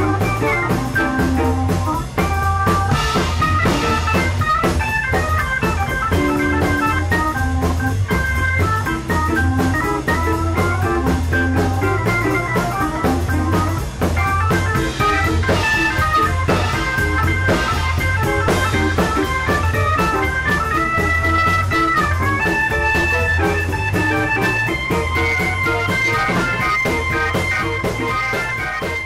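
Hammond organ playing soul-blues with a drum kit, over a steady pulsing bass line. Near the end the organ holds long chords and the music fades out.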